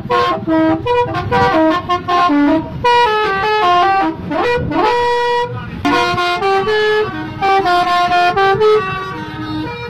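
Telolet horns, multi-tone musical vehicle horns, play quick runs of stepped notes back and forth like a tune. A brief swooping note comes about halfway through.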